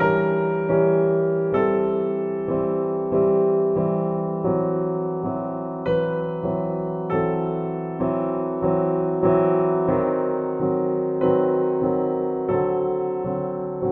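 Background music: an electric piano playing slow chords, one struck about every 0.8 seconds, each fading before the next.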